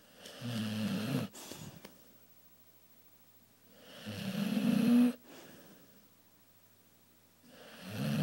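A dog snoring loudly in its sleep: three rattling snores about four seconds apart, each growing louder, the first two breaking off sharply.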